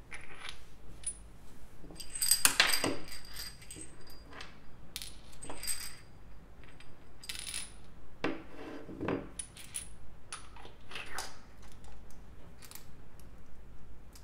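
Small machined aluminium parts of a robot figure clinking and tapping against each other as they are taken apart and handled, several taps ringing briefly and brightly; the loudest clinks come about two to three seconds in.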